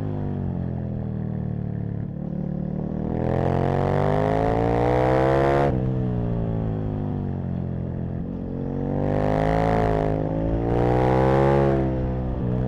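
Aprilia RSV Mille's 60° V-twin engine under hard riding: revs fall off, then climb steeply and cut off suddenly about halfway through as the throttle closes. The engine slows on overrun, then pulls up again with a brief dip for an upshift before easing off near the end. A rush of intake and wind noise accompanies each hard pull.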